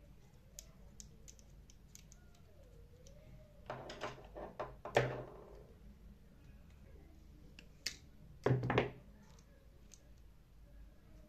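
Small metal and plastic drill parts being handled and fitted together: scattered light clicks, with a clatter of knocks about four seconds in and another short clatter near the end.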